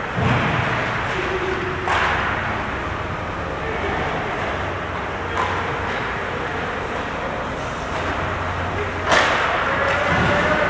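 Ice hockey game sounds in an indoor rink: skates on the ice, and sticks and puck clacking, with sharp knocks about two seconds in and again near the end. Players' calls are heard faintly over a steady low hum.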